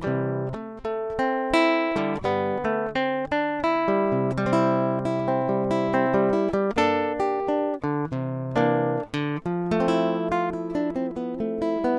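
Background music: an acoustic guitar playing a steady run of plucked notes and chords.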